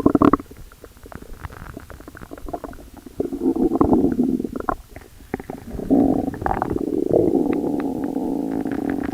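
Stomach growling: scattered gurgling pops and clicks, then a low rumble about three seconds in and a longer, steady rumble from about six seconds in.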